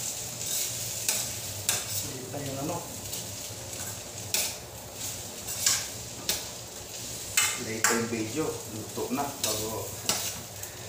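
A cooking utensil scrapes and knocks against a frying pan in repeated strokes as food is stir-fried, with a steady sizzle of hot oil underneath.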